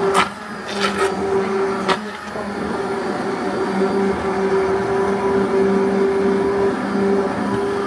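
Hand-held immersion blender running in a steel pot, puréeing cooked beetroot: a steady motor hum that holds an even pitch. There are a few sharp knocks in the first two seconds.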